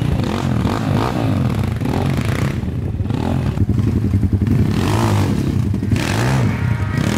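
250 cc Kayo enduro motorcycle engine revving up and down, its pitch repeatedly rising and falling as the bike is ridden off-road.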